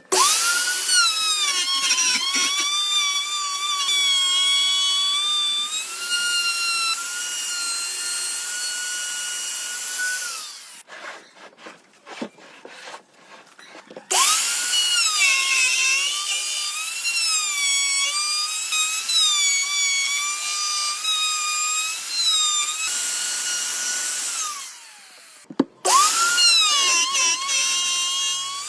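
A handheld electric power tool's motor whining at high speed while cutting wood, its pitch dipping and wavering under load. It runs in three spells, spinning up at each start, with a pause of a few seconds of light knocking about eleven seconds in and a short stop again near the end.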